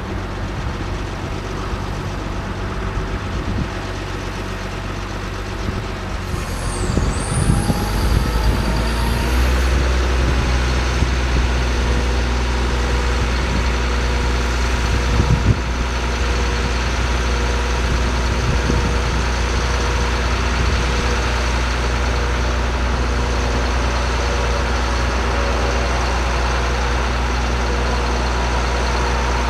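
2006 GMC C7500 aerial truck's engine running steadily; about nine seconds in it steps up to a louder, fuller steady running that holds, with a brief high squealing glide just before the change.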